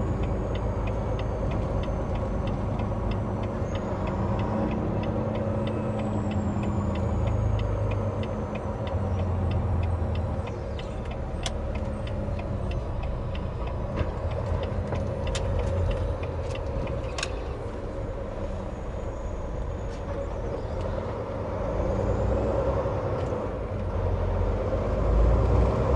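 Cab of a 2020 Volvo VNL 860 semi truck rolling slowly, its diesel engine running low with a rumble that swells now and then. A turn signal ticks steadily, about three ticks a second, for the first ten seconds or so, and a few sharp clicks follow in the middle.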